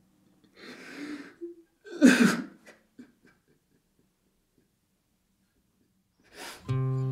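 A man sobbing: a shaky breath, then a loud sob whose voice falls in pitch, followed by a few short catches of breath. Acoustic guitar music starts near the end.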